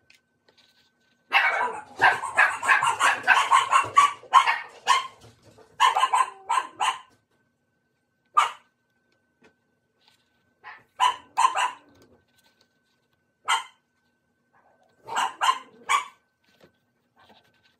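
A dog barking in quick runs: a long volley of rapid barks starting about a second in, then shorter bursts of a few barks and single barks until near the end.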